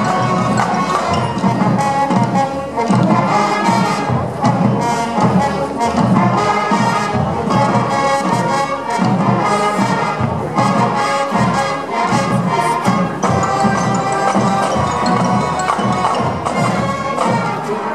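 Marching band playing a field show: trumpets, saxophones and a sousaphone carry the tune together, with percussion hits keeping the beat.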